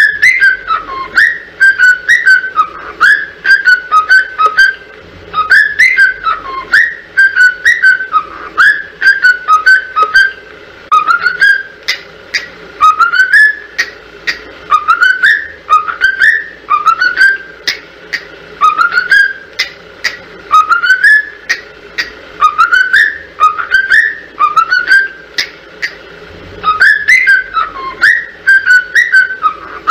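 A cockatiel whistling the same short phrase over and over with brief gaps: quick rising whistled glides and short notes, mixed with sharp clicks.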